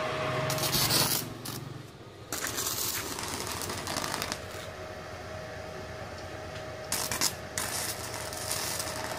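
Stick arc welding from a just-repaired Izumi Max 120 inverter welder: the electrode's arc crackling, picking up again after a brief drop about two seconds in and flaring near the end, with a faint steady tone underneath. It is the repaired machine being tested under an arc.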